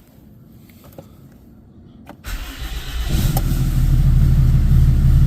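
Dodge diesel pickup engine cranking for under a second, catching and settling into a steady idle: its first start after an oil change.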